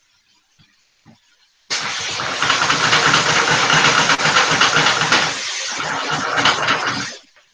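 Chicken pieces sizzling loudly in hot oil and their own released fat as the frying pan is shaken over the burner. The sizzle starts suddenly about two seconds in and cuts off about a second before the end.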